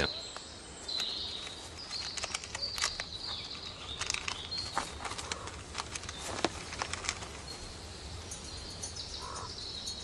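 Siberian chipmunk gnawing at a Siberian pine cone, a run of small irregular crackling clicks as it picks out the pine nuts. Faint high bird chirps sound in the background.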